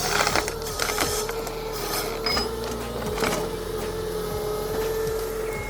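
Machinery running with a steady whine, broken by several sharp knocks and clicks: one just after the start, then about one, two and three seconds in.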